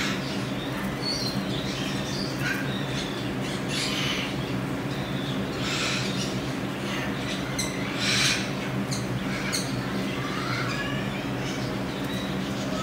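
Baby marmoset monkeys giving short, high-pitched chirps and squeaks every second or two, with a louder, harsher squeak about eight seconds in, over a steady low hum.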